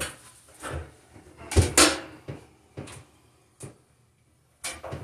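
Scattered handling knocks and clicks from tools and parts, the loudest a close pair of knocks about a second and a half in, with a short quiet spell near the end before more knocks.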